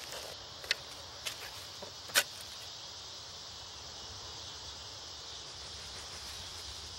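A long-handled digging tool strikes the ground three times, sharp knocks, the loudest about two seconds in, then stops. A steady high-pitched hiss runs underneath.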